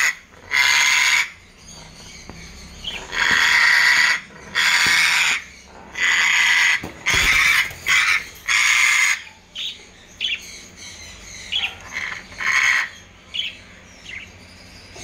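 African grey parrot giving a series of loud, harsh screeches, each about half a second to a second long, then shorter, quieter chirps and a few brief screeches from about nine seconds in.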